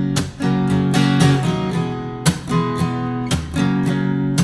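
Instrumental music: acoustic guitar strumming chords, with sharp strums every second or so and the chords ringing between them, no singing.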